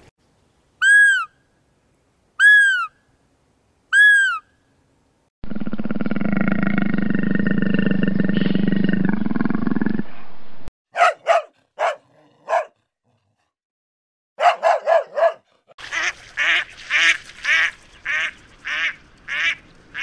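A run of different animal calls. First come three short arched calls about a second and a half apart, then a long low rasping call lasting about four seconds. After that come a few short sharp calls and a fast series of repeated short calls near the end.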